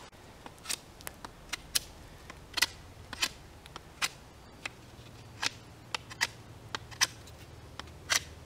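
Knife blade whittling a wooden stick: a string of short, crisp cutting strokes at irregular intervals, about one or two a second.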